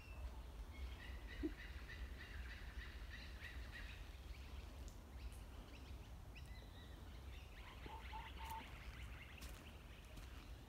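Birdsong in bushland: a bird sings a quick run of repeated notes for about three seconds, then another stretch of song a few seconds later with three short lower notes in it, over a faint low rumble.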